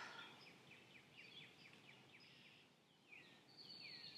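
Faint birdsong: a quick series of short chirps, then a few longer falling notes and a held high whistle near the end. A breath out fades away in the first moment.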